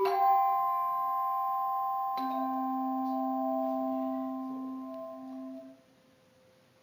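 Handbell choir sounding its closing chords: a chord struck at the start and left ringing, a low bell joining about two seconds in, then all the bells damped together at once near the end, cutting the sound off.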